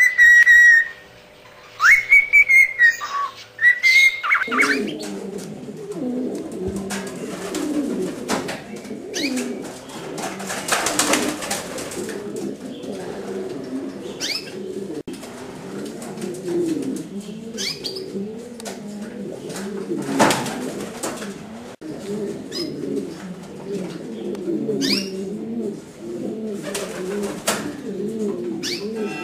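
A loft of Jienense pouter pigeons cooing, many birds at once, giving a continuous low bubbling coo with occasional sharp clicks and brief higher chirps. It is preceded for the first four seconds or so by a loud high-pitched tone that slides up and down, then the cooing comes in.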